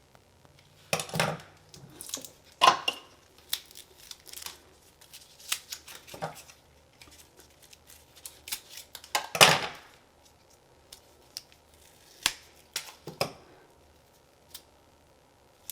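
A folding knife slitting the plastic sheath of Romex electrical cable and the sheath being pulled off the wires: scattered small clicks and scrapes, with a few louder rustling tears, the loudest a little past halfway.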